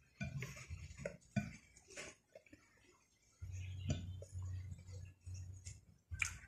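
Eating rice by hand from a glass plate: scattered small clicks and taps as fingers gather the rice against the glass. A low steady hum comes in about halfway through.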